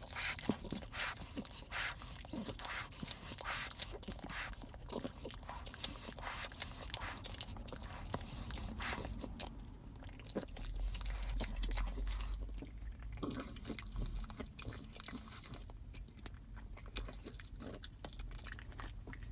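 French bulldog gnawing on a twisted chew stick: irregular crunching and clicking bites with wet chewing between them. A low rumble sits under the chewing for a few seconds midway.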